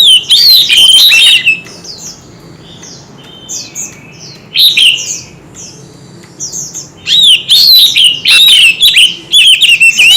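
White-rumped shama singing rapid, varied whistled phrases in loud runs, one at the start, a short one about five seconds in and a long one over the last three seconds, with softer phrases in between.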